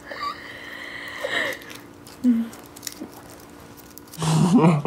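Girls laughing under their breath: a breathy, hissing laugh in the first second and a half, a few small voice sounds, then voiced laughter breaking out about four seconds in.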